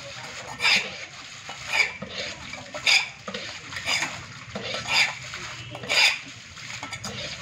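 Floodwater being bailed by hand with a plastic bowl and a steel plate: a scrape of the vessels on the wet floor and a splash as each scoop is thrown out, about once a second, six strokes in all.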